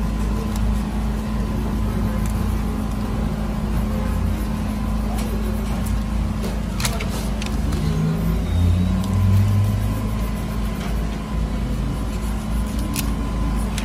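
A steady low hum, with a few light clicks and paper rustles as a paper pattern is handled and marked with a pencil.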